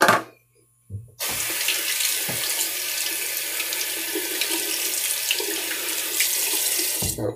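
Bathroom sink tap running, water splashing into the basin as a face is rinsed. It comes on about a second in, runs steadily and shuts off abruptly just before the end.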